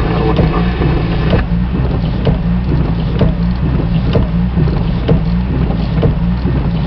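Open radio channel noise from a fire and EMS dispatch feed: a steady low hum and buzz with a faint tick about once a second.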